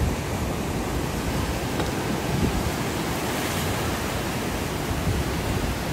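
Steady rush of surf washing around pier pilings, with wind rumbling on the microphone.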